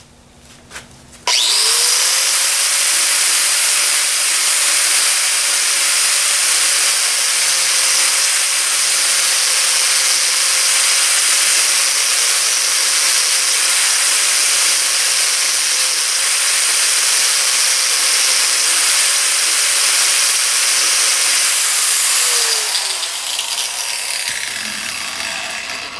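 Angle grinder switched on about a second in and grinding the steel back edge of a lawnmower blade held in a vise, a steady motor whine under a loud grinding hiss, taking a light pass just to even the edge up. Near the end it is switched off and its pitch falls as it spins down.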